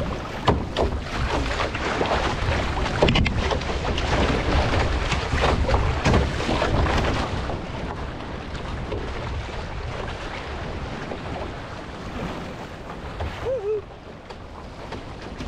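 Water sloshing and splashing around a paddled outrigger canoe in choppy sea, with wind buffeting the microphone. It is loudest through the first half and eases after about eight seconds.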